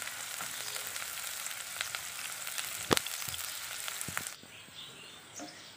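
Chopped onions sizzling in hot cooking oil in a frying pan while a wooden spatula stirs them, with small crackles and one sharp knock about three seconds in. The sizzle cuts off abruptly a little after four seconds.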